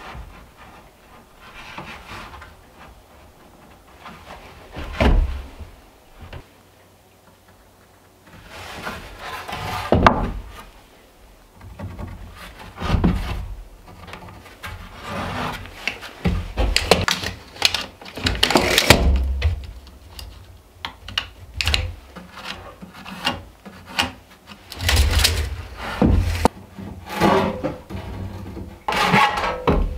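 Pine boards being handled and laid on a wooden chest: scattered knocks and wood rubbing on wood, sparse at first and busier in the second half.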